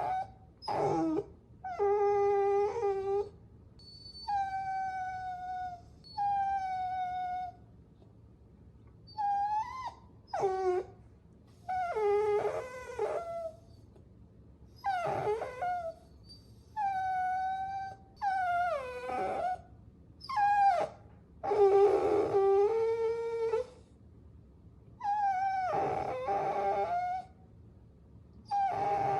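Puppies whining: a string of high-pitched whines and whimpers, each lasting about half a second to two seconds, some sliding down in pitch, with short pauses between them.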